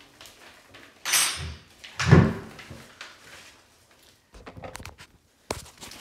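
Knocks and thuds on a hollow-core interior door: two loud thuds about a second apart, then a few lighter clicks and a sharp knock near the end.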